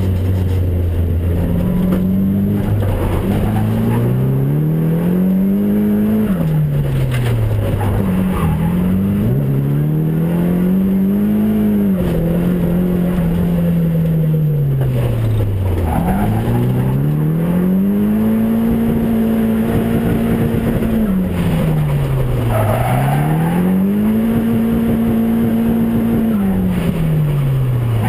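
Drift car engine heard from inside its stripped, roll-caged cabin, revving hard through a drift lap. The revs climb, hold high for a couple of seconds, then fall back, about four times over.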